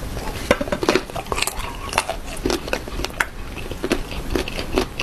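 Close-up crunching of a slice of unripe green mango being bitten and chewed: an irregular run of crisp crackles, several a second.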